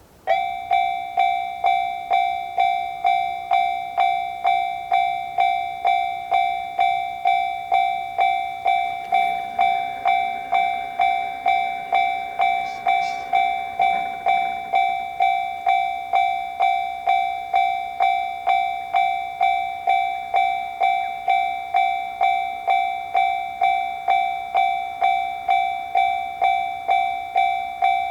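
Japanese railroad crossing's electronic warning bell starting up and ringing its repeated 'kan-kan' strikes, about one and a half a second, each with a ringing tone: the signal that a train is approaching and the crossing is closing.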